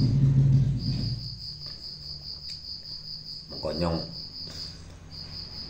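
A cricket chirping: a high-pitched, evenly pulsing trill that keeps going, broken by short pauses near the start and near the end.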